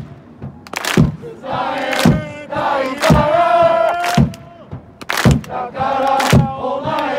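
Football supporters chanting in unison, sung phrases punctuated by a sharp beat about once a second, with short breaks between lines.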